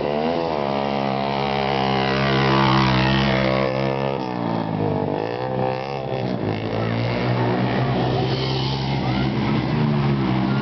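Small dirt bike engines racing on a dirt track: a steady engine note whose pitch rises and falls as riders throttle up and pass, dipping about four seconds in and climbing again soon after.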